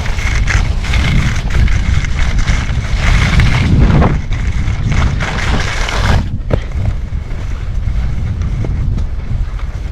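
Wind rushing over the camera microphone while skiing downhill, with skis hissing and scraping over snow through repeated turns.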